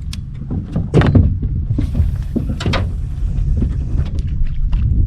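Several knocks and thunks on a boat, the loudest about a second in, over a steady low rumble.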